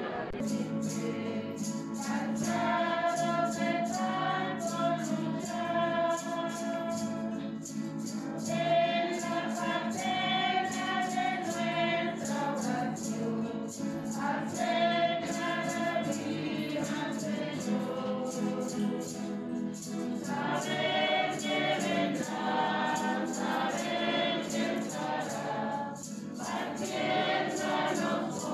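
A group of voices singing a church hymn together, with a steady rhythmic accompaniment beneath the singing.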